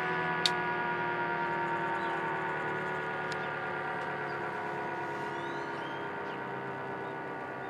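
ACA Cyclone dual-tone electromechanical warning siren, running without its top lid, winding slowly down: its two-tone chord sinks gently in pitch and fades. A sharp click about half a second in.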